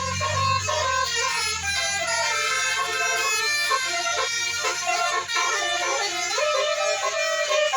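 Bus telolet horn, a set of air horns playing a rapid stepping melody as the bus passes, with the bus's engine rumble fading over the first two seconds.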